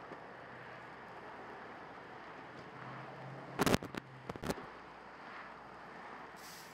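Semi truck fire burning with a steady rushing noise, broken a little past halfway by a quick cluster of several loud, sharp pops from something bursting in the flames.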